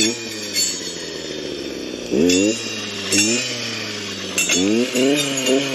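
Stihl clearing saw idling and revving up in short bursts, about three or four times, as it cuts through brush, with sharp clinks as the blade strikes stems.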